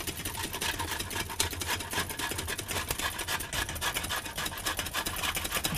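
Rapid rasping strokes of lemon rind being grated on a metal box grater, with metal clinking from eggs being whisked in a steel pot.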